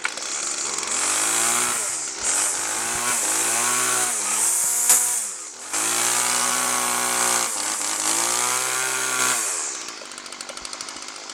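Weed Eater Featherlight FL25 string trimmer's small two-stroke engine running on full choke just after starting, revving up and down several times, then dropping to a lower idle near the end.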